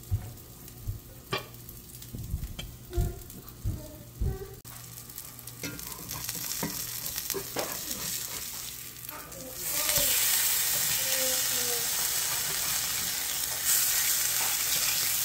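A few light knocks of a spatula against the pan, then salmon fillets sizzling in hot olive oil in a cast iron skillet. The sizzle jumps louder about ten seconds in, as the fillets are flipped onto their uncooked skin side.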